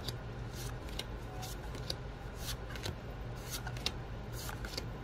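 A stack of Magic: The Gathering cards being leafed through one card at a time, paper sliding against paper in short swishes about twice a second, over a low steady hum.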